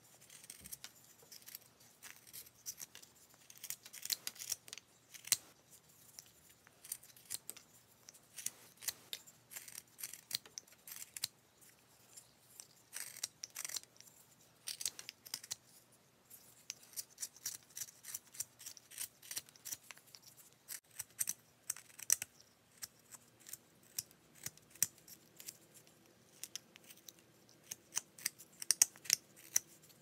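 Carving knife slicing shavings off a wooden bird blank by hand: short, crisp cuts coming irregularly, several a second, with brief pauses between runs.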